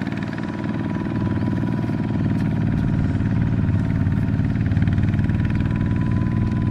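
Single-cylinder diesel engines of Kubota walking tractors running steadily, hauling trailers loaded with sacks.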